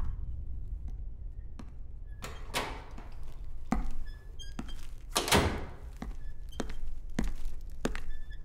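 A series of irregular knocks and thunks, about a dozen, the loudest about five seconds in, with faint short high beeps between them.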